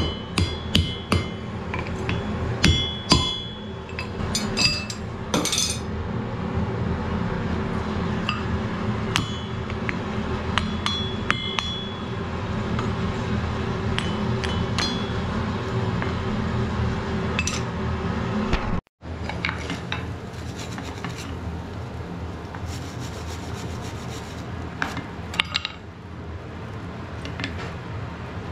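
Hand hammer blows on glowing wrought iron on a steel anvil, the iron being bent around a drift bar to form an axe eye: a quick run of ringing strikes in the first few seconds, then sparser taps and clinks. A steady low hum runs underneath, and after a break about two-thirds of the way in only light taps and clinks follow.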